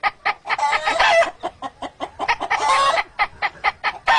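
A person imitating with the voice a hen cackling after laying an egg: a fast run of short clucks broken by two longer, louder drawn-out cackles, about a second in and near three seconds.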